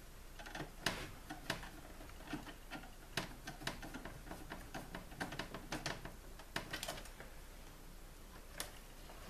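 Irregular clicks and light knocks of a screwdriver working a terminal screw, with the wire tapping against the WFCO 8955 power center's metal enclosure, as a wire is fastened. The clicks come in a quick uneven run, thin out after about seven seconds, and one more comes near the end.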